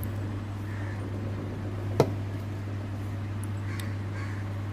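A steady low hum, with one sharp click about two seconds in.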